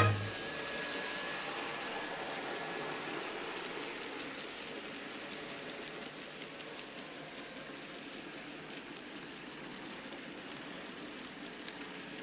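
Model train rolling past on the layout track: a faint steady whir with light clicking of the wheels over the rail joints, fading as the cars go by.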